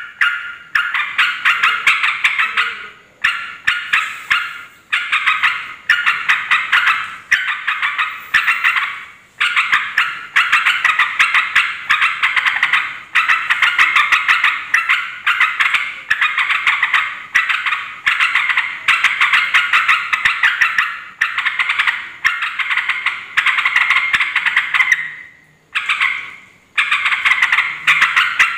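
Yellow-vented bulbul singing noisily: long runs of rapid, bubbly chattering notes strung together with only brief pauses, a few seconds in, about a third of the way through and near the end.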